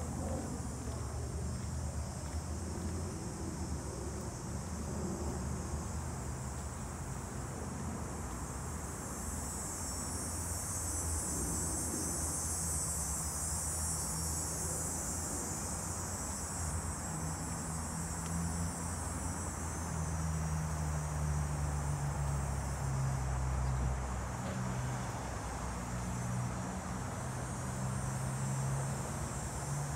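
Summer insects buzzing in a high, steady drone that swells for several seconds in the middle, over a low rumble of street traffic.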